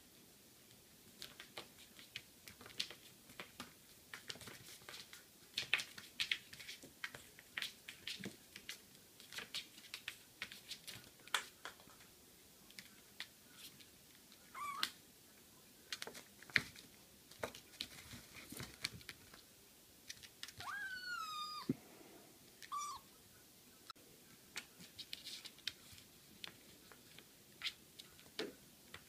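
A tiny Siamese kitten batting a cork about on a plastic-covered table: many light, irregular clicks and taps of the cork and paws. A few short high meows come past the middle, the longest one rising and falling.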